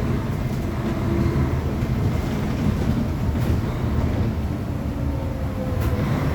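Diesel engine of a Mercedes-Benz O500UA Bluetec 6 articulated bus running with a steady low rumble. A faint whine drifts slightly down in pitch in the second half, and a couple of light clicks come near the end.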